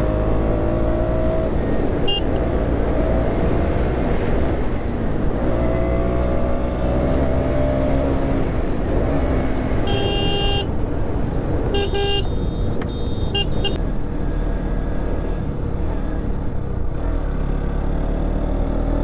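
A KTM Duke 200's single-cylinder engine runs under way, its note rising repeatedly as the bike accelerates. About ten seconds in, a horn sounds for under a second, then gives a few short toots about two to three seconds later.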